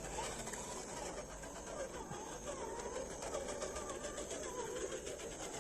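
Electric motor and gearbox of an RGT EX86110 1/10-scale RC crawler running at low, varying speed, its whine rising and falling in pitch with the throttle, with a steady high hiss above it.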